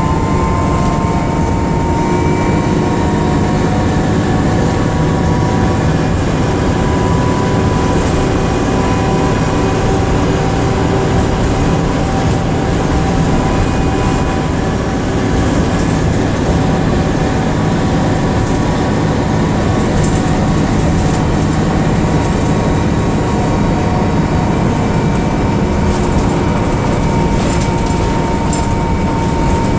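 A DAF DB250 double-decker bus on the move, heard from its upper deck: steady engine and road rumble with a held whine. A few short rattles come near the end.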